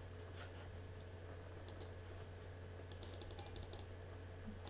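Faint clicks of a computer keyboard or mouse: two clicks about a second and a half in, then a quick run of about nine clicks near the three-second mark, over a low steady electrical hum.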